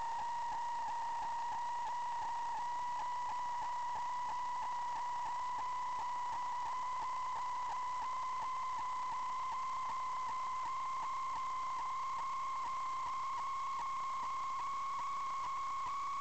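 Steady electronic whine with a couple of overtones, its pitch creeping slowly upward, over a constant hiss.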